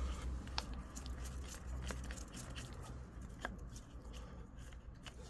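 A few faint clicks from a Chain Monkey chain-tension gauge being wound up against a motorcycle drive chain, over a low steady hum.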